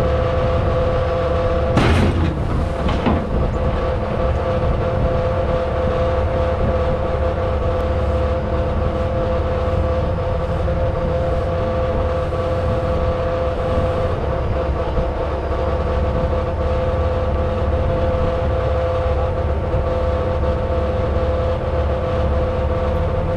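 Heavy rotator tow truck's diesel engine running steadily with a steady whine while its boom winches pull on a tipped, loaded grain trailer. A couple of sharp clanks come about two and three seconds in.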